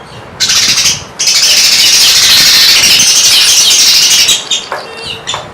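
Canary singing: a short high burst, then a loud rapid trill lasting about three seconds, followed by a few softer notes near the end.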